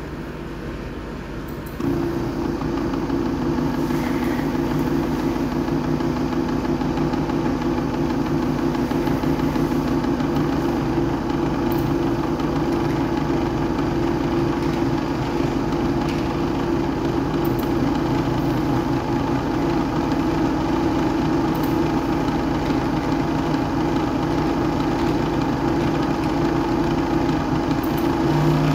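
Small electric motor on a PLC speed-control trainer running with a steady hum. It starts up about two seconds in as the analog output sends it a speed reference, and its sound shifts near the end when the reference is raised.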